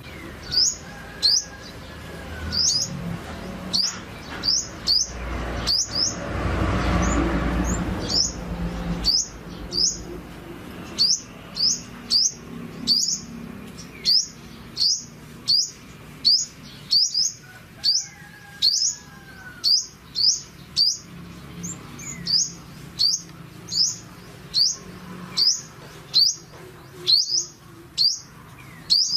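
Purple sunbird calling: short, sharp, high chirps repeated about once a second, often in quick pairs. A low rush of noise swells and fades about seven seconds in.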